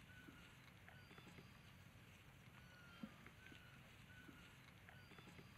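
Near silence: a faint background of soft short chirps and light clicks, repeating about every four seconds, with one small thump about three seconds in.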